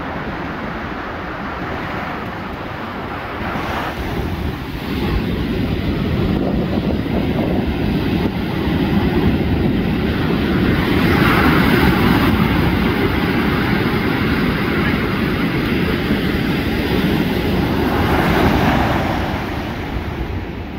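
Surf washing up a sandy beach, rising and falling as the waves come in, with wind rumbling on the microphone.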